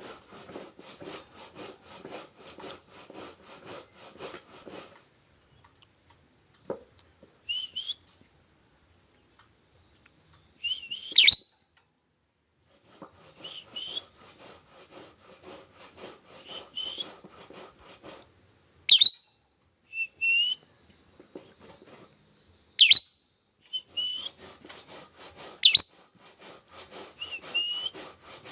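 Lovebird singing: long stretches of rapid, scratchy chattering broken by short chirps and, four times, a loud piercing shriek.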